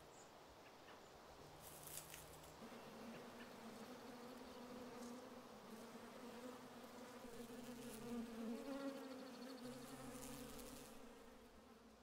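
Faint buzzing of wasps, a steady low drone that wavers slightly in pitch, setting in a few seconds in and fading near the end.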